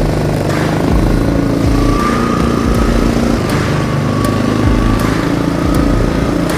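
Engine of a small vehicle running steadily as it drives along spreading seed from a hopper, with a faint wavering whine above the engine note.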